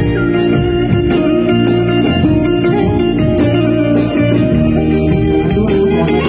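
Guitar-led band music with bass, played to a steady beat.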